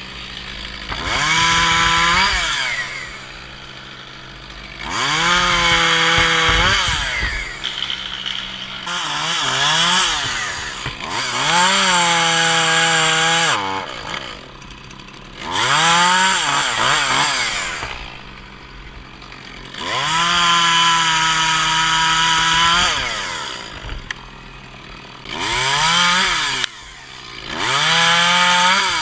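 Echo CS-271T top-handle two-stroke chainsaw revving up and cutting in about eight bursts of one to three seconds each, the pitch rising at each squeeze of the throttle and dropping back to idle between cuts. A steady low engine hum runs underneath.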